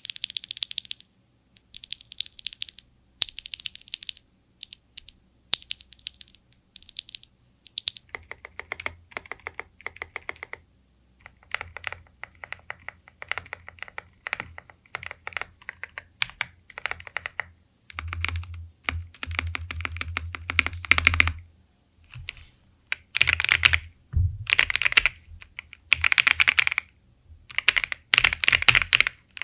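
Typing on an Ajazz AK650 65% mechanical keyboard with factory-lubed linear switches. Runs of quick keystrokes come with short pauses between them, and in the last few seconds the runs are denser and louder.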